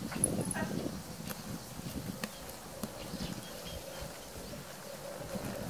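Grey Andalusian horse moving on arena sand, its hoofbeats soft and muffled, with faint clicks. A faint steady hum comes in about halfway through.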